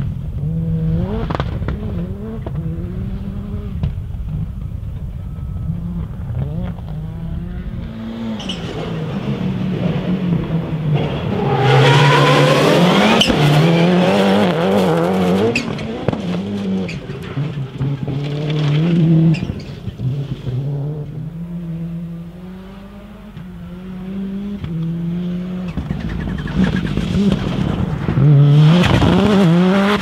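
About 600 hp rallycross Supercars, a Citroen DS3 RX and a Volkswagen Polo RX, passing under hard acceleration. The engine note climbs and drops again and again as they rev up and shift. It is loudest as a car goes by close about 12 seconds in, eases off around 22 seconds, then swells again near the end.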